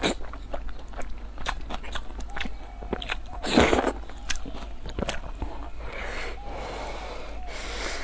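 Close-miked eating sounds: noodles slurped into the mouth at the start, then wet chewing with many small mouth clicks. A louder noisy burst comes a little past halfway, and another near the end.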